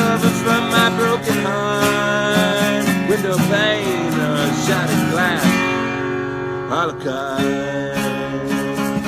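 Acoustic guitar strummed in a steady rhythm under a slow country song, with wordless singing sliding between notes about three to five seconds in. The chords keep ringing after that.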